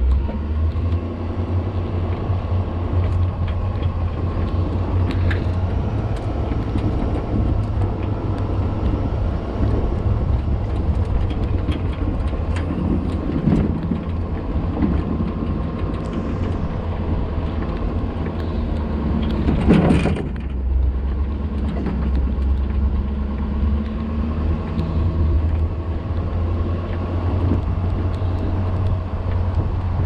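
Plow truck running steadily, a continuous low engine and road rumble, with a brief louder noise about two-thirds of the way through.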